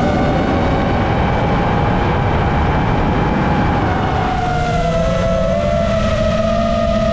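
FPV quadcopter's brushless motors and propellers whining. The pitch holds, then dips and wavers past halfway as the throttle changes. A heavy rumble of wind on the onboard GoPro microphone runs underneath.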